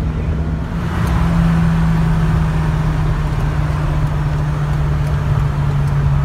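Cabin noise inside a moving 1980 Volvo 240 at highway speed: a steady engine drone with road and wind noise, getting a little louder about a second in.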